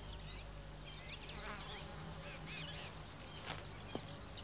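Steady high-pitched drone of insects with many short bird chirps and whistles scattered over it.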